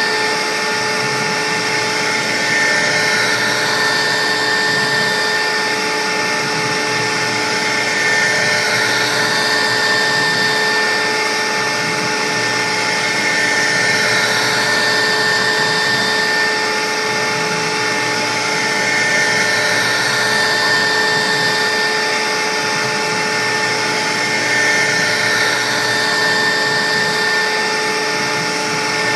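CNC router spindle running, with a steady high whine over a constant cutting noise that swells and fades every few seconds.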